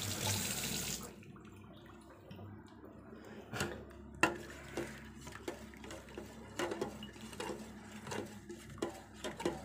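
Kitchen tap running, shut off about a second in, followed by a series of light clinks and knocks of dishes, glasses and a spoon being handled.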